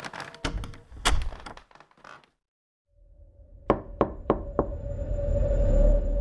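A series of sharp knocks and thuds, broken by a moment of dead silence about two seconds in, then more knocks over a steady low hum.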